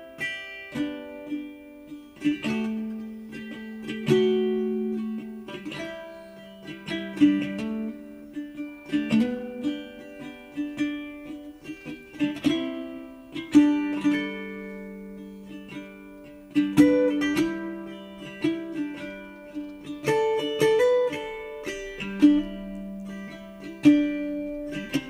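Background music: a gentle melody on a plucked string instrument, notes picked one at a time and left to ring.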